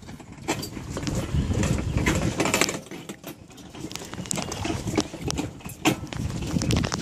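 Footsteps of two walkers on a composite-plank boardwalk: irregular knocks of shoes on the hollow decking, over a low rumble.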